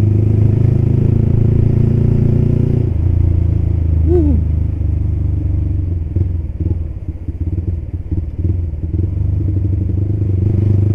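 Motorcycle engine running through an aftermarket silencer exhaust while riding, a bassy note that drops in pitch about three seconds in as the throttle eases. A brief falling tone comes near four seconds, and the exhaust note turns uneven and choppy in the middle before steadying again.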